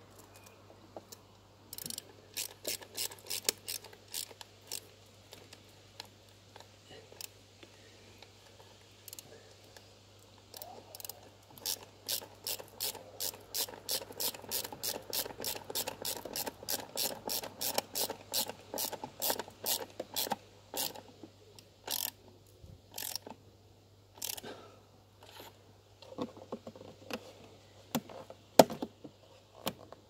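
Socket ratchet wrench clicking as it is swung back and forth to turn a bolt, in runs of quick clicks with pauses between. There is one sharper, louder knock near the end.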